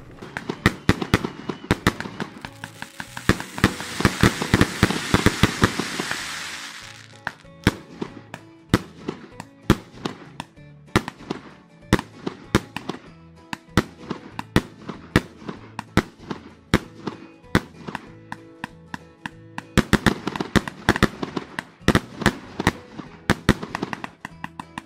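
Fireworks going off in many sharp bangs and pops, with a dense crackling hiss for several seconds a couple of seconds in, over background music.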